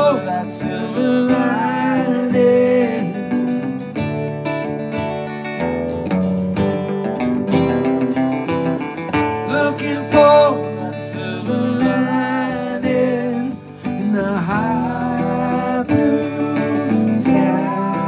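A hollow-body archtop electric guitar and an acoustic guitar playing together in an instrumental break, with chords under a lead line whose notes slide in pitch.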